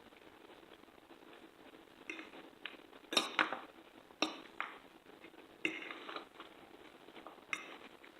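Cutlery clinking against a plate while eating, a series of sharp irregular clinks starting about two seconds in.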